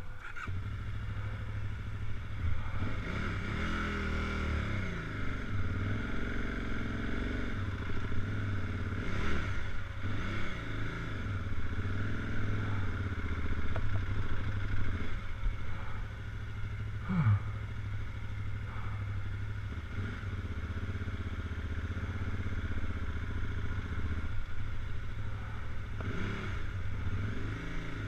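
Adventure motorcycle engine under way on a sandy dirt track, its note rising and falling repeatedly as the throttle is worked, with a quick rev about seventeen seconds in.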